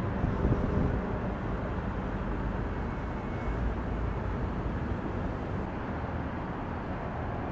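Steady outdoor city ambience: a low rumble of distant traffic with no distinct events.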